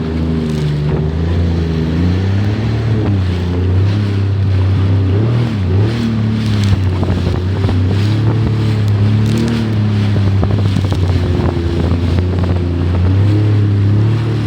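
Jet ski engine running under way, its pitch wavering up and down as the throttle changes.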